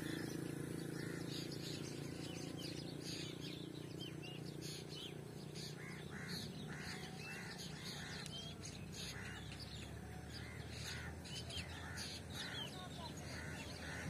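Several birds calling: quick high chirps throughout, and from about six seconds in a steady run of short repeated calls, about two a second. A low hum fades away over the first few seconds.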